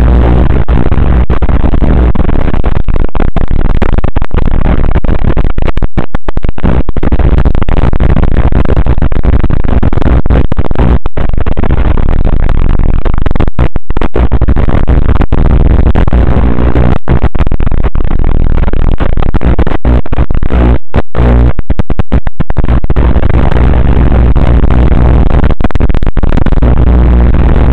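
Loud, continuous static hiss with a low buzz underneath, cutting out for an instant many times. It is noise on the boat camera's audio track, not sound from the scene.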